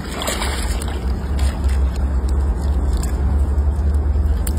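Young crocodiles clambering out of the water onto a concrete edge: scattered light scrapes and clicks of claws and bellies on concrete, over a steady low rumble.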